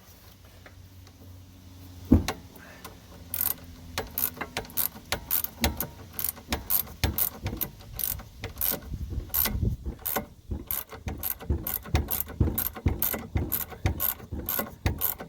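Ratcheting wrench clicking rapidly as it works the lower nut of a sway bar link loose. The stud is held with a Torx bit through the wrench's centre. There is a single knock about two seconds in, and the steady clicking starts about a second later.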